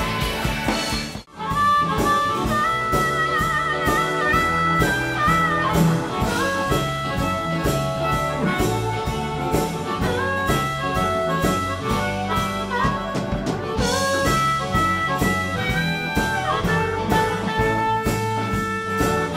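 Live band music: a rock song cuts off about a second in and a new number starts, with a harmonica lead playing held and bent notes over drums with a steady beat, guitars and saxophone.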